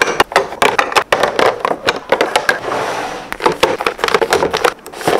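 Jars and foil rice pouches being packed into a clear acrylic pantry bin: a quick run of knocks and clicks with packet rustling between them.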